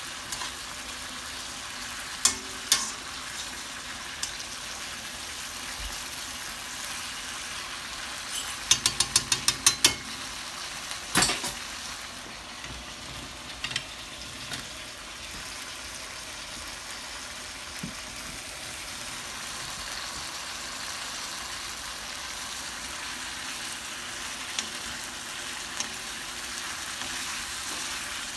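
Sliced sausage, bell pepper and onion sizzling in a hot non-stick pan, a steady frying hiss as the sausage crisps. The stirring utensil clicks against the pan now and then, with a quick run of about eight taps around nine seconds in.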